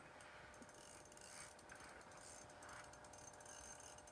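Faint ratcheting clicks of a fishing reel while a hooked fish is played up through the ice hole.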